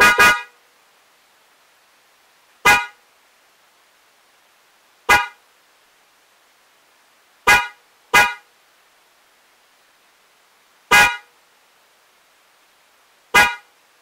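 Denso J-Horn Hyper snail-type electric car horn sounded in short toots: a quick double toot at the start, then single toots about every two and a half seconds, with another double a little past the middle.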